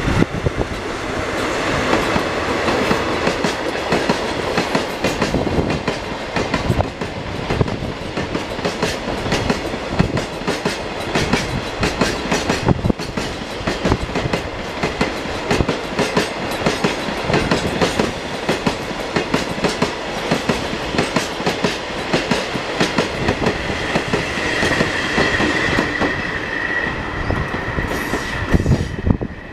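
Empty Seki 6000 coal hopper wagons rolling past, their wheels clattering over the rail joints in a fast, dense run of clicks. A steady high wheel squeal sounds for a few seconds near the end, as the train rounds the curve.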